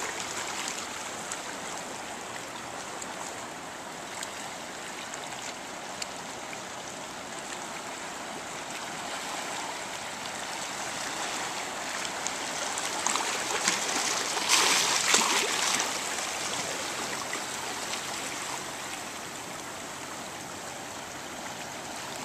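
Shallow seawater lapping and trickling among shoreline rocks: a steady wash, with one louder surge lasting a second or two about two-thirds of the way through.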